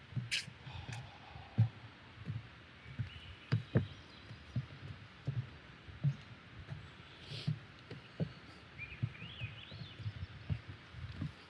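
Footsteps walking at a steady pace, dull thumps about every two-thirds of a second. A few short bird chirps come in about three seconds in and again near the end.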